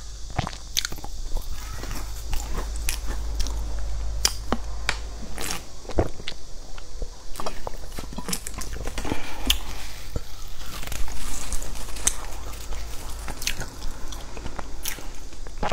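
Close-miked chewing of sesame-crusted fried pastry: wet mouth sounds with many sharp crunchy clicks and crackles. About halfway through there is a drink of water from a plastic bottle, and then the chewing goes on.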